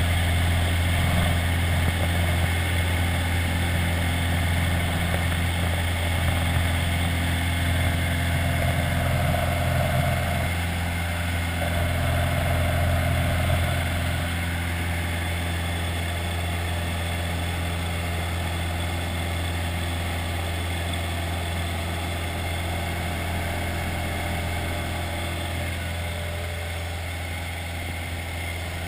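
Single-engine light aircraft's piston engine and propeller running in flight: a steady drone with a strong low hum. It gets a little quieter about halfway through.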